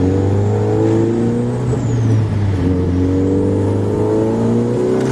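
Turbocharged 2.0-litre four-cylinder of a tuned Honda Civic Type R FK8 accelerating, heard from inside the cabin. The engine note climbs, drops at a gear change about two seconds in, then climbs again, with a high turbo spool whistle rising and falling along with it.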